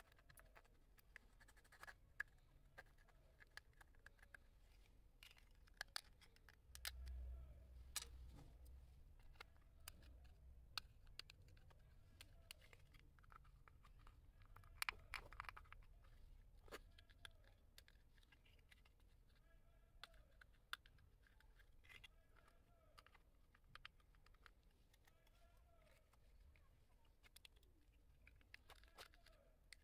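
Near silence: faint room tone with scattered small clicks and ticks, and a brief low rumble about seven seconds in.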